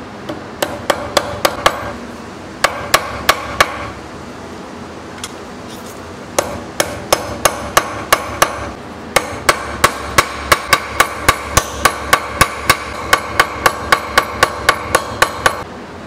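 Small hammer tapping copper and steel knife parts on a steel anvil, in quick runs of blows that each leave a short metallic ring. Two short runs come first, then a longer one, then an even run of about three blows a second that stops just before the end.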